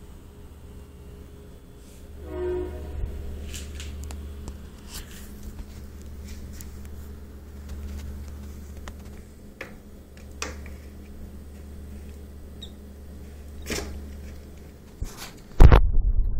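Handling noises from a cardboard box being moved and opened: scattered clicks and rustles over a steady low hum, a short squeak about two and a half seconds in, and a loud bump near the end.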